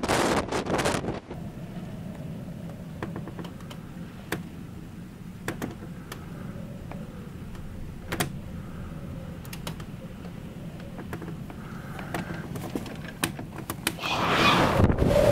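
Storm wind buffeting the microphone for about a second, then the muffled inside of a ship's cabin: a steady low rumble with scattered sharp clicks and ticks. Near the end, loud wind and breaking sea rush in.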